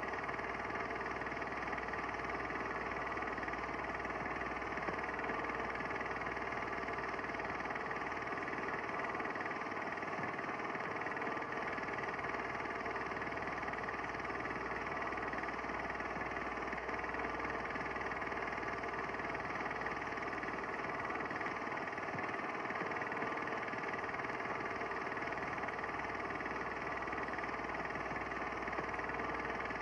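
Steady, unchanging mechanical hum.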